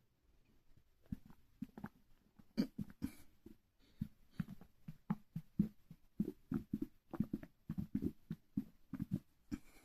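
Human stomach gurgling from trapped air: a run of short, low bubbling pops at an irregular pace, sparse at first and coming faster from about halfway through.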